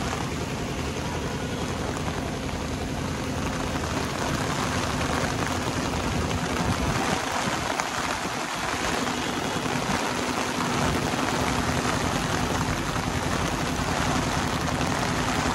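Steady monsoon rain, an even hiss, with wind rumbling on the microphone and a low steady hum underneath.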